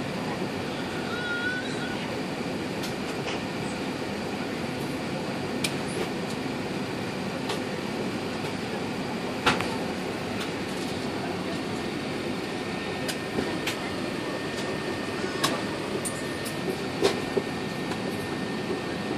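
Steady cabin noise inside an Airbus A380 on the ground: an even rumble of the engines and air conditioning, with a brief high squeak about a second in and a few sharp clicks and knocks scattered through it.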